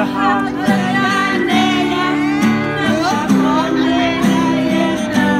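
A woman singing into a microphone, her voice amplified over backing music with guitar and a steady bass. The chords change every second or so under the sung melody.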